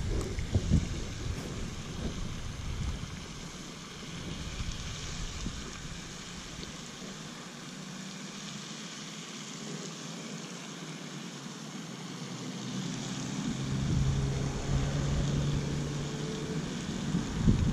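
Outdoor ambience: wind rumbling on the microphone at first, then a steady low motor hum comes in about two-thirds through and grows louder.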